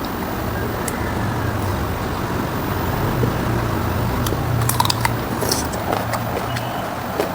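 Close-up eating sounds of pork ribs and rice being chewed: wet smacks and short clicks, most of them in the middle of the stretch, over a steady low rumble.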